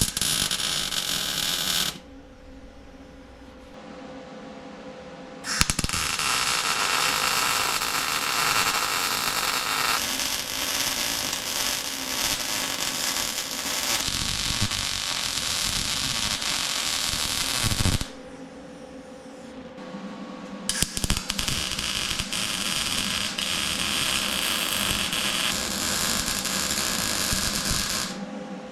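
Electric arc welder laying beads on the steel box's seams: three bursts of steady crackling hiss, a short one at the start, then two long runs separated by pauses.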